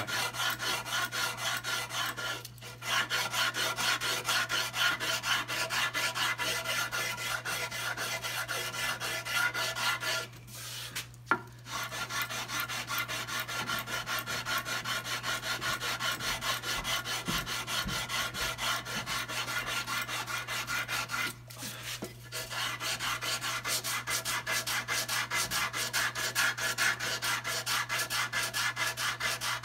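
Sandpaper on a stiff wooden sanding block rubbing rapidly back and forth over a carved basswood hull, a steady dry rasping of hand-sanding. There are three short breaks in the strokes.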